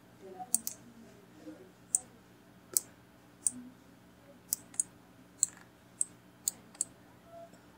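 Computer mouse and keyboard clicks: about a dozen short, sharp clicks at irregular intervals, some in quick pairs, over a faint steady hum.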